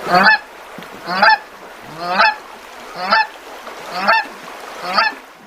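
A goose honking: six short, nasal honks at an even pace of about one a second.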